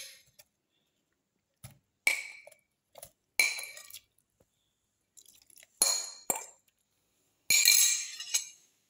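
Metal spoon clinking against the bowl and the stainless-steel mixer-grinder jar as watermelon pieces are scraped into the jar. The sharp clinks each ring briefly and come a second or so apart, with a longer run of clatter near the end.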